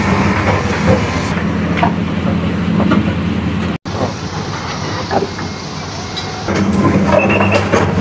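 Heavy diesel machinery running steadily, a wheeled excavator and a dump truck, with a low engine hum and scattered knocks and scrapes of rubble. The sound drops out for an instant a little before the middle.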